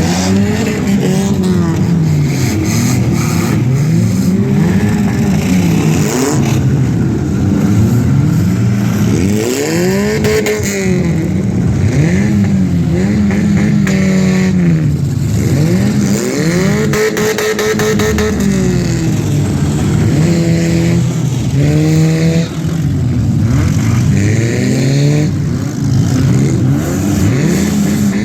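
Several demolition derby cars' engines revving up and down over one another, with a few sharp bangs of impacts among them.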